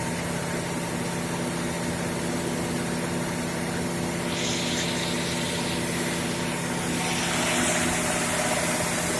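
Fire pump and its engine running steadily while pumping water through a hydraulic-elevator suction circuit, with a hissing rush of water or air joining about halfway through and growing a little louder near the end.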